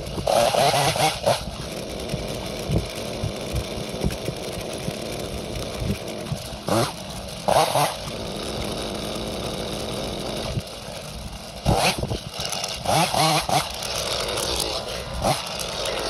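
Petrol chainsaw cutting up small branches: the engine runs steadily throughout, with several short louder surges as it is throttled up into the cuts.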